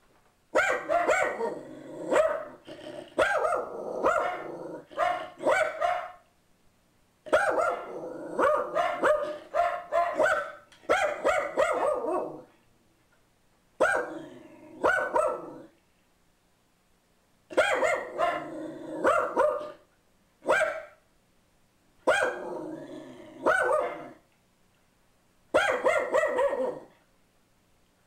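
Pug mix alarm-barking at a stranger at the door, in about six volleys of rapid barks separated by short quiet gaps.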